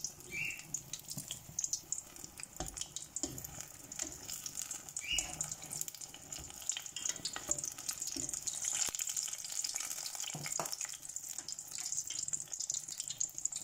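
Batter-coated banana slices sizzling and crackling as they deep-fry in hot oil.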